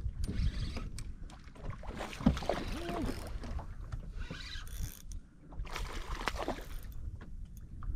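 Hooked snook thrashing and splashing at the surface beside a small skiff, over wind rumbling on the microphone. There are a few short splashy bursts; the loudest comes about two seconds in and another just after six seconds.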